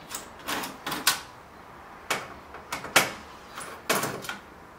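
A screwdriver working screws out of a flat-screen TV's bare metal chassis: a string of sharp, irregular metallic clicks and clacks, roughly one a second.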